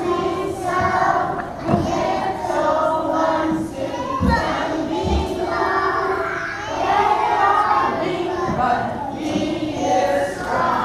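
Young preschool children singing a song together, with a couple of low thumps near the middle.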